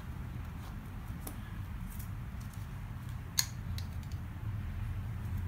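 Small plastic handling clicks and rustles as safety glasses are handled and a paper dust mask adjusted, over a steady low rumble. One sharper click comes about three and a half seconds in. No sander is running.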